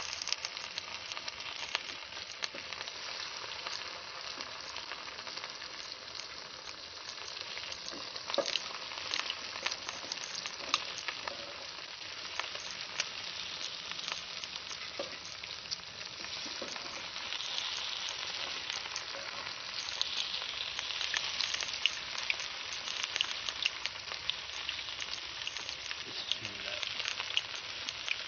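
Battered fish pieces deep-frying in hot oil in an aluminium pot: a steady, dense sizzle with frequent crackles and pops.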